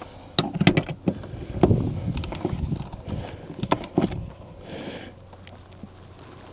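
A few scattered sharp clicks and knocks over low rustling: hands and tools working at a car seat's mounting bolts.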